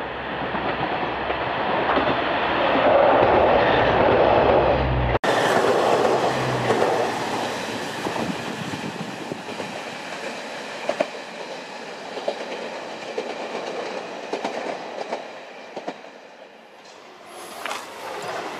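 Diesel trains running through a small station. For about five seconds a railcar passes close by, its engine rumbling loudly with a steady low drone. After a sudden cut, an approaching train sounds quieter, with scattered clicks of wheels over rail joints, and grows louder near the end.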